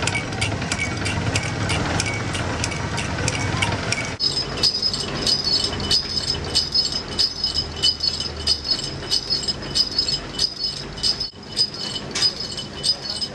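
A belt-driven pulley machine runs with a fast, regular ticking. After a cut about four seconds in, a sugarcane juice crusher's flywheel spins with small bells on its hub jingling in a steady rhythm.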